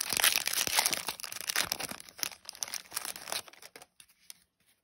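Foil wrapper of a Yu-Gi-Oh booster pack crinkling and tearing as it is pulled open by hand without scissors. The crackle dies away after about three and a half seconds, leaving a few faint ticks.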